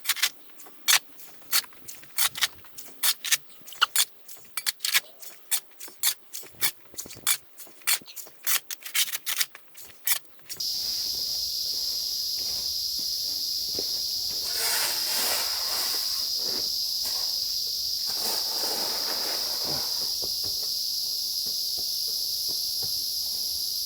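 A run of irregular sharp clicks and taps, two or three a second, then from about ten seconds in a steady high-pitched insect drone that starts abruptly and holds, with a rougher hiss over it for a few seconds midway.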